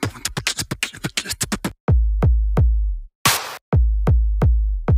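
Electronic background music with a drum-machine beat: a fast run of ticks, then heavy bass-drum hits broken by short silent gaps.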